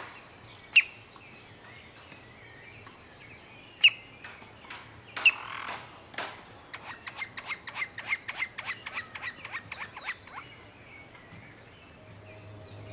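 Green-barred woodpecker calls: a sharp single note about a second in and another near four seconds, a brief rushing noise about five seconds in, then a rapid run of short calls at about four or five a second lasting over three seconds.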